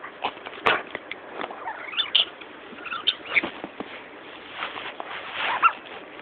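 Small Jack Russell–Yorkshire terrier mix whining in short high cries and snuffling close to the microphone, with a sharp knock about a second in.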